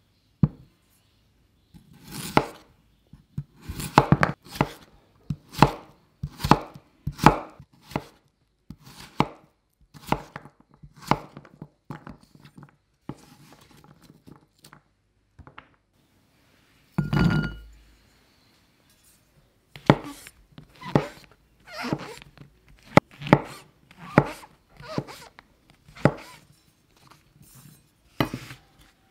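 Kitchen knife chopping potato and then mushrooms into cubes on a wooden cutting board: quick, irregular knocks of the blade through the vegetable onto the wood. The strokes thin out for a few seconds past the middle, and a single heavier, duller knock comes just after.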